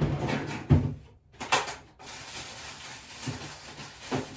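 Kitchen handling noise: a few sharp knocks and clatters, then a steady hiss from about two seconds in.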